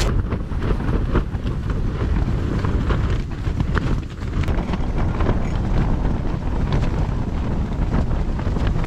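Storm wind battering a tent, heard from inside: a loud, steady low rumble of gusts with faint irregular ticks.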